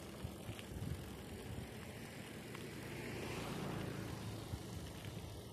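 BMX bike being ridden: steady rolling and rattling noise with wind on the microphone, swelling a little about three seconds in.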